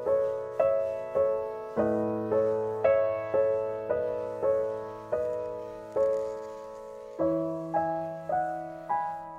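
Background piano music: a slow, gentle melody of single struck notes, about two a second, each ringing and fading, over held bass notes that change twice.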